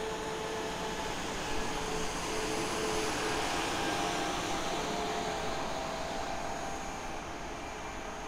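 Self-propelled rail track maintenance machine travelling along the track past the listener: a steady diesel engine drone with a held whine over the rumble of the machine on the rails. It grows louder toward the middle, then fades as it moves away.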